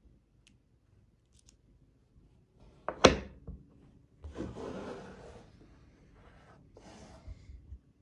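Magnetic ball hexagons snapping together with one sharp click about three seconds in, followed by a gritty rattle of the balls shifting and sliding against each other and on the table, a shorter rattle near the end, and a few small clicks.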